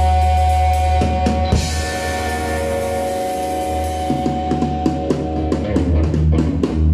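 A live rock trio of electric guitar, upright double bass and drum kit. A held electric guitar note rings out over a steady low bass for the first few seconds. Then the drums and the busier playing of the band come back in, about four seconds in.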